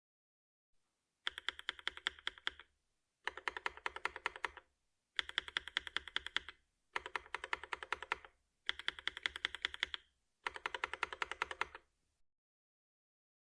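Keystrokes on a mechanical keyboard with NovelKeys Cream linear switches, fitted with hand-cast polyurethane KSS and ABS vintage Cherry double-shot keycaps. The keys are tapped in six quick runs of about a dozen clicking strokes each, with short pauses between the runs.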